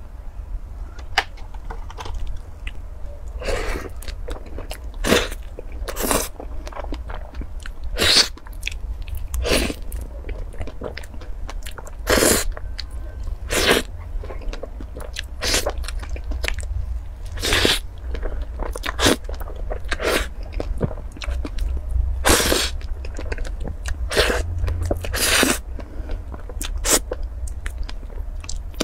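Close-up eating sounds of soft cream-filled sponge cake being bitten and chewed, with short sharp mouth noises every second or two.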